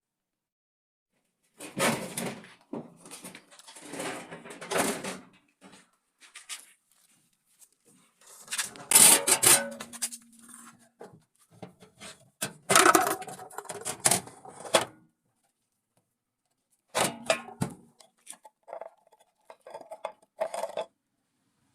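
Hard parts clattering and knocking in irregular bursts, with abrupt silent gaps between them, as the washing machine's rotor plate is worked on.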